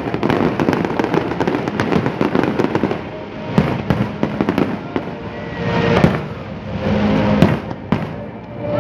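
Aerial fireworks bursting: a dense, rapid crackle for about the first three seconds, then a few separate loud bangs of shells breaking, with swells of crackling around them.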